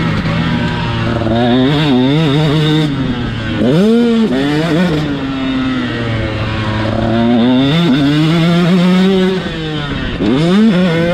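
A KTM SX 125 two-stroke single-cylinder motocross engine, heard from the rider's seat, is revving hard under load. Its pitch rises and falls with the throttle and gear changes, dropping sharply and climbing again twice, about three and a half seconds in and again near the end.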